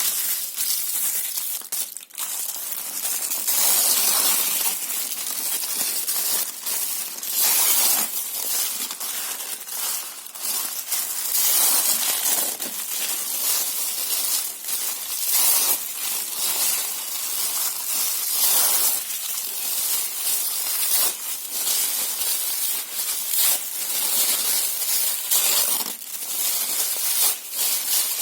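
Paper and cardboard being torn and crumpled close to the microphone: a continuous run of crisp rips and crinkles with frequent sharp snaps.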